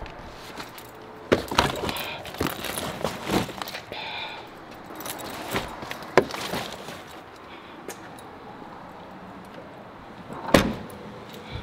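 Bags being loaded into a car trunk: buckles, straps and handles clink and knock against each other and the trunk floor in a run of short clicks and thuds. Near the end the sedan's trunk lid is shut with a single loud thump.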